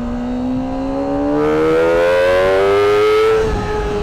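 Kawasaki ZX-25R's 250 cc inline-four engine, through its stock exhaust, accelerating hard with a high-pitched wail that climbs steadily in pitch for about three and a half seconds, then levels off near the end.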